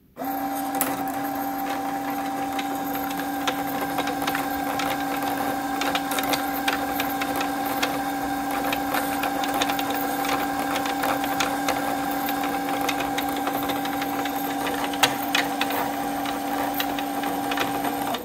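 Brother EX660 computerized sewing machine's motor spinning the bobbin winder at a steady speed, winding thread onto the bobbin: a steady hum with two steady tones and scattered light ticks. It starts abruptly as the foot pedal is pressed and cuts off suddenly near the end.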